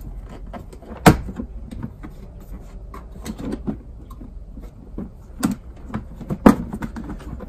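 Hard plastic cover being worked loose and lifted from a van's seat-base compartment: scattered plastic clicks and rattles, with three sharp knocks, one about a second in and two close together near the end.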